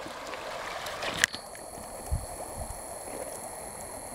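Shallow rocky creek running, a steady wash of water over stones. About a second in there is a sharp click, after which a faint steady high tone runs on, and there are a couple of soft low bumps.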